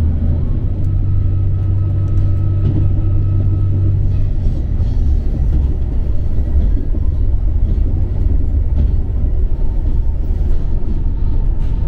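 A vehicle running in motion: a steady low rumble. An engine hum rides on it and drops away about four seconds in, leaving a rougher rumble.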